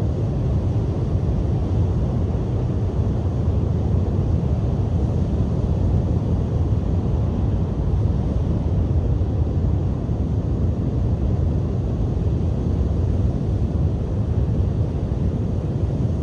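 Strong sea wind buffeting the microphone as a steady, deep rumble, with surf mixed in beneath it.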